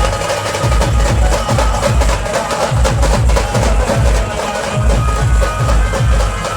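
Indian street procession band playing a song: held melody lines over fast, heavy bass-drum beats and bright, clattering percussion.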